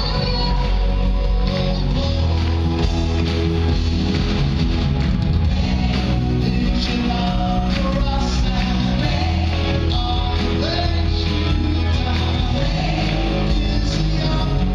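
Live worship band playing a song with electric guitar, bass, keyboard and drums, and singers' voices over the band at a steady level.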